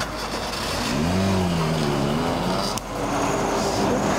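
Road vehicles on an open road: an engine note rises in pitch about a second in and then wavers, with a heavy lorry passing close by near the end.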